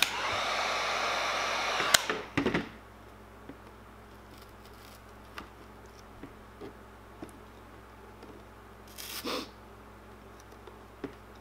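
Electric heat gun blowing steadily for about two seconds while the vinyl graphic is warmed to soften it, then switched off with a click, followed by a couple of knocks. After that come faint taps and rubbing of fingers pressing the vinyl onto the plastic body, with a short rustle near the end.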